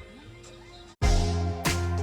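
Background music: a quiet passage, a brief break about a second in, then louder music with a steady beat.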